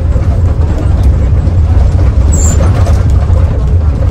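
Mercedes-Benz OH 1521 bus under way: a loud, steady low rumble of engine and road noise, with a brief high squeak about two and a half seconds in.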